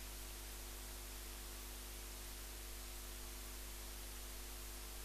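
Steady hiss with a low, even electrical hum from the sound system's microphone feed, with nobody speaking into it.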